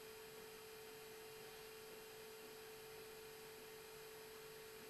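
Near silence: a faint, steady single-pitched hum over a light hiss.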